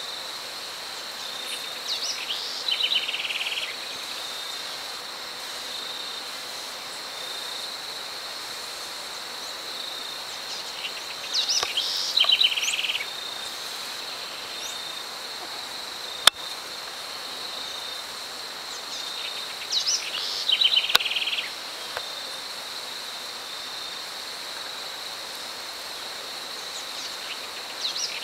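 A bird repeats the same short song about every eight or nine seconds: a few rising notes, then a rapid run of notes. Under it runs a steady high-pitched insect note, and there is a single sharp click about sixteen seconds in.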